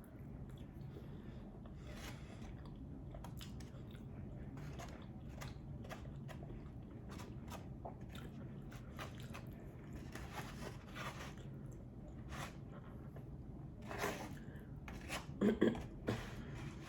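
Close-miked chewing of brisket and macaroni and cheese: scattered small wet clicks of the mouth and teeth, with a few louder bites near the end.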